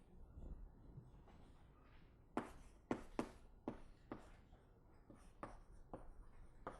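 Faint writing on a board: a string of irregular taps and short strokes, most of them from about two seconds in.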